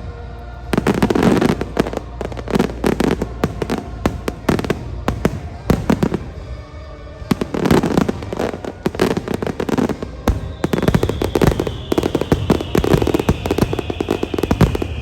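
Fireworks bursting in dense, rapid volleys of bangs and crackles that come in waves, over a musical show soundtrack. From about ten seconds in, a long high tone slowly falls in pitch.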